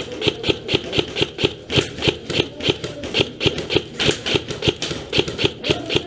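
A steady, rapid series of sharp clicks, about four to five a second.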